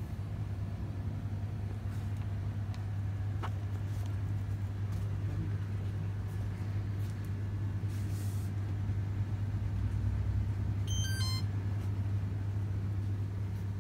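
Steady low electrical hum filling a small shop, even and unbroken. About eleven seconds in comes a brief flurry of short, high electronic beeps at several pitches.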